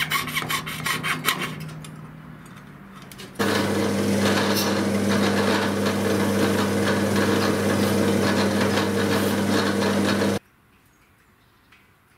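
Rapid hand-saw strokes on a clamped brass strip, then a drill press with a sanding drum starts up and runs steadily, with a hum and a gritty grinding as brass strips are sanded against the drum. The drill press cuts off suddenly near the end, leaving a few faint clicks.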